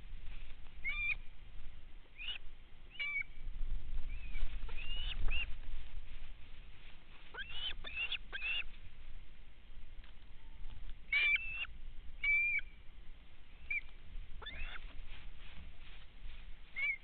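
Short high-pitched animal chirps, about a dozen, scattered irregularly, some sliding up in pitch, over a faint low rumble.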